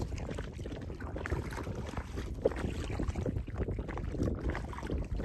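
Wind buffeting the microphone with a steady low rumble, over light splashes and small knocks of water around a kayak.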